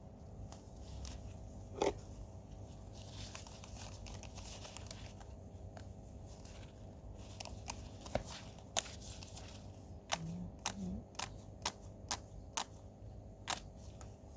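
Soil and potato plants being dug and handled: rustling and crunching, with a run of sharp clicks and snaps in the second half.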